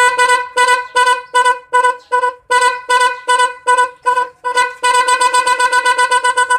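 'Torpedo'-type electric vehicle horn sounding one pitch in short repeated beeps, about three a second, each fading quickly. Near the end it switches to a rapid run of about seven beeps a second.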